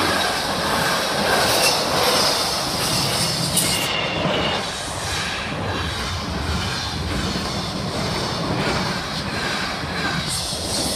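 Freightliner container freight train rolling over a level crossing, its wagon wheels clattering steadily over the rail joints.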